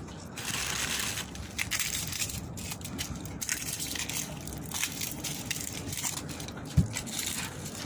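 Plastic bags crinkling and rustling as raw fish and chicken are handled, in an uneven run of crackles, with a single low thump about seven seconds in.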